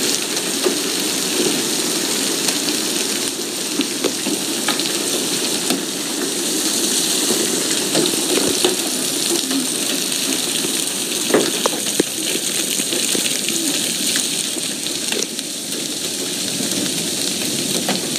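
Hail and heavy rain coming down: a steady hiss of falling rain with scattered sharp clicks of hailstones striking hard surfaces.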